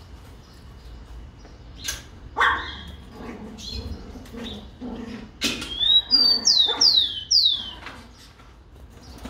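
Rufous-collared sparrow (tico-tico) singing: a run of about four clear, high whistles, each falling in pitch, starting about five and a half seconds in. Before that come several lower, harsher calls, the loudest about two and a half seconds in.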